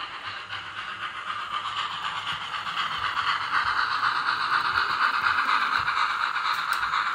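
Sound-fitted OO-scale model of a GWR Manor 4-6-0 steam locomotive running with its coaches: the LokSound 5 decoder's steam sound through the model's small speaker, mixed with the rattle of wheels on the track, growing louder as the locomotive comes close.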